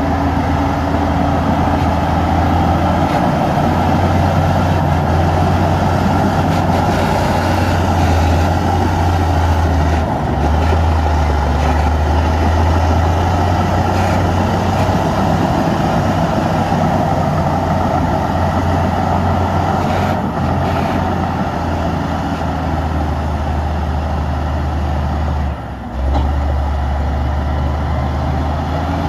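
Heavy diesel engine of earthmoving machinery running steadily at work, with a brief drop in level near the end.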